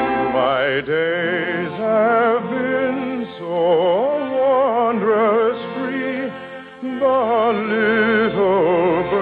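Orchestral music with a solo singer holding long notes with a strong vibrato. The song is from a 1950s radio operetta and sounds thin, as it has no high treble.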